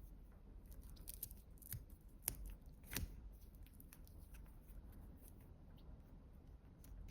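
Faint handling of a magnetic charging cable's small protective cap: a few light clicks and ticks, the sharpest two about two and three seconds in.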